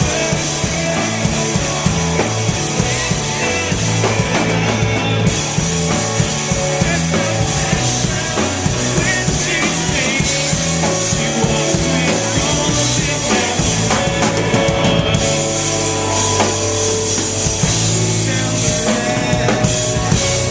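Live rock band playing loudly, with a drum kit driving a steady beat under sustained instrument notes.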